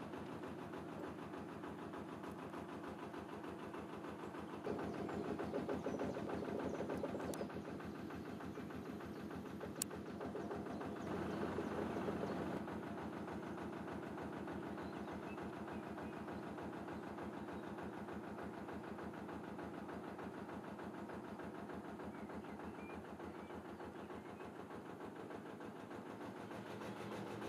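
Narrowboat engine chugging steadily with an even, rapid beat as the boat cruises along the canal, growing louder twice for a few seconds.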